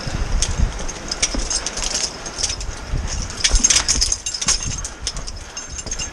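Scrambling over loose boulders: irregular clicks and knocks of boots, hands and gear on rock, with a low rumble of wind buffeting the microphone.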